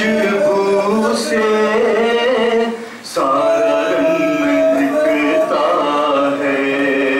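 A man singing an Urdu nauha (Shia mourning lament) into a microphone in long, drawn-out notes, breaking off briefly for breath about three seconds in.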